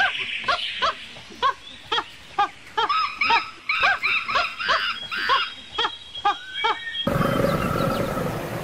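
Monkey calling: a run of short, arching hoots, about two a second. About seven seconds in they cut off and a steady, rough noise takes over.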